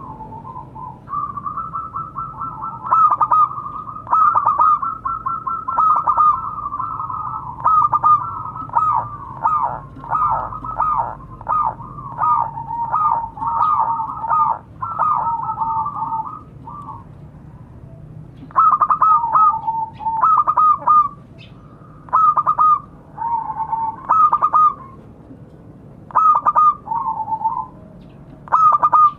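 Zebra dove (perkutut) cooing: a long run of short, rapid, staccato coo notes that goes on for about sixteen seconds, then, after a pause, three shorter phrases of coos.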